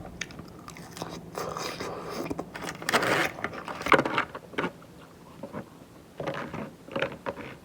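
A person chewing a mouthful of crunchy salad, mostly iceberg lettuce, close to the microphone: irregular, really crunchy bites and chews.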